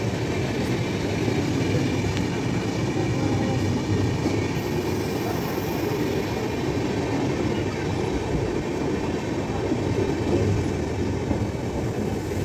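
LHB express train coaches running past at speed: a steady rumble and clatter of wheels on the rails.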